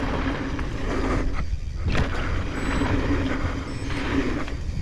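Mountain bike ride heard from a chin-mounted action camera: wind rush and tyres rolling over the dirt trail, with a steady buzzing tone throughout and a sharp knock about two seconds in.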